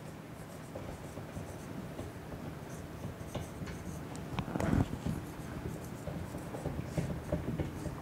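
Dry-erase marker writing on a whiteboard: a run of short scratching strokes and light taps as letters are formed, with a louder bump nearly five seconds in.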